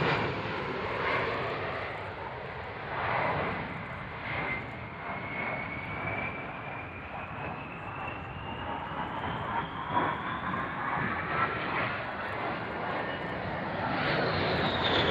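Fairchild Republic A-10 Thunderbolt II's twin TF34 turbofan engines during a high-G turn, a steady jet noise with a thin whine that climbs slowly in pitch and starts to fall near the end as the jet goes by.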